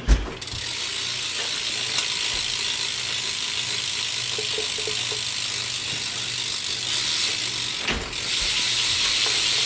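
BMX rear wheel spinning freely, its stock Fit hub's freewheel pawls clicking so fast that they run together into a steady buzz. It starts with a knock and is briefly interrupted by another knock near the end.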